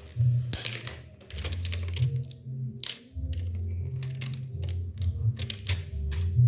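Cardboard phone box being handled: irregular clicks, taps and scrapes, over a steady low hum.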